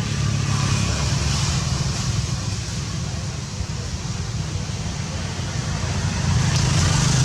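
Steady low rumble with a hiss over it, growing louder about six seconds in.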